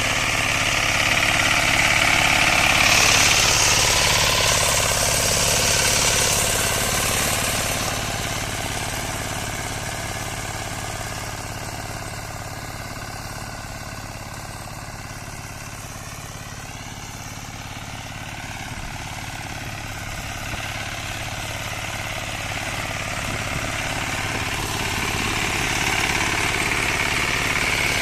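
Zubr walk-behind tractor running with its rotary tiller working ploughed soil, the engine note steady throughout. It grows fainter through the middle and louder again near the end.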